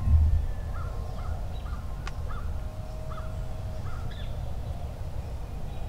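A crow cawing, a loose series of short caws over about four seconds, over a steady low rumble. A single sharp click about two seconds in.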